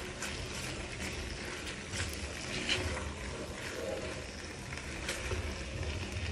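Spatula stirring chicken and vegetables in a thick sauce in a non-stick frying pan, with a few short scrapes and taps against the pan, over a steady low hum.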